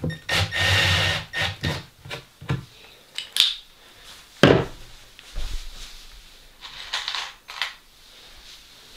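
Cordless drill-driver running briefly near the start, driving a screw into the wooden panel, followed by scattered knocks and clatter of the drill and hardware being handled and set down on the wooden box top, with one loud thump about midway.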